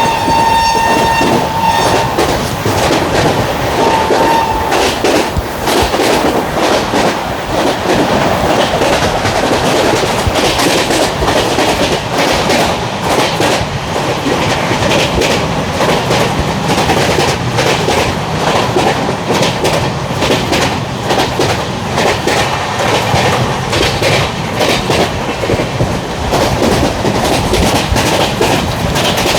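WAP7 electric locomotive's horn sounding one long note that ends about two seconds in, then a short toot about four seconds in. Under and after it, the LHB coaches' wheels run loudly over the track in a dense clatter of clicks.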